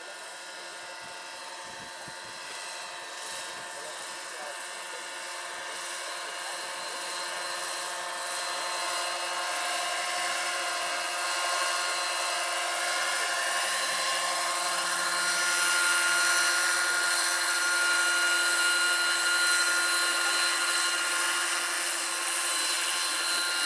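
Electric motor and rotors of a 700-size Lockheed XH-51 scale model helicopter in flight: a steady whine of several held tones, growing louder as the model comes closer.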